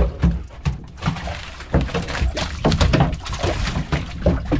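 A large gaffed jack landing on a fiberglass boat deck and thrashing, giving an irregular run of heavy thumps and slaps of its body and tail against the deck.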